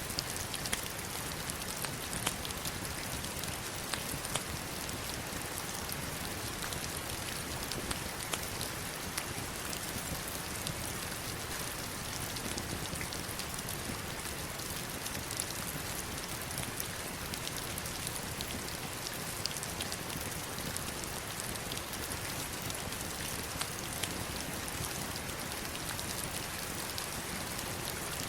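Heavy rain falling steadily on rocks and water: a constant hiss with many sharp individual drop hits.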